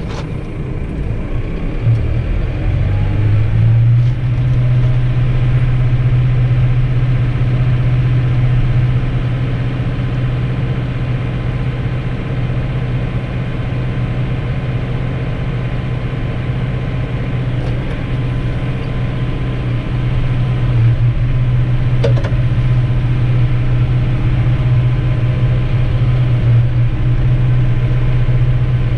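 Tractor's diesel engine heard from inside the cab, rising in revs about two to four seconds in and then running steadily.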